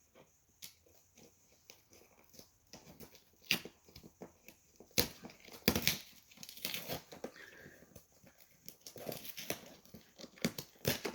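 Packaging being handled: irregular crinkling, rustling and clicking, with brief bursts of louder crackle and tearing.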